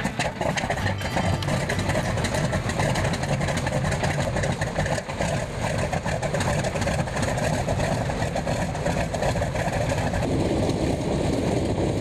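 An-2 biplane's nine-cylinder radial piston engine running steadily at low power with its propeller turning, just after start-up.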